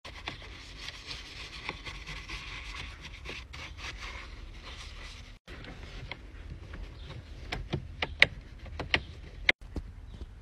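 Bristle detailing brush scrubbing a car's plastic dashboard air vent with cleaner: a steady scratchy rubbing that breaks off about five seconds in. After that comes a lighter microfiber towel wipe over the vent, with several sharp clicks in the last few seconds.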